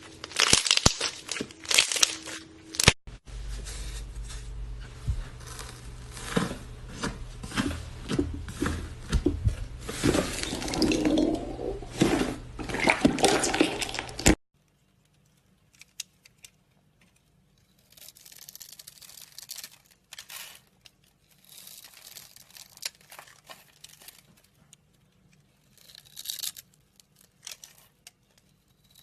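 Slime being squished and stretched by hand: wet squelching with many small pops and clicks. It stops abruptly about halfway, followed by quieter, scattered squishes.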